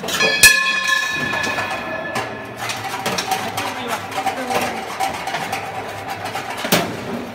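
Metal clanking from a grain air-puffing machine being handled: a loud clang about half a second in that rings on for about two seconds. A steady mechanical hum follows, with another sharp clack near the end.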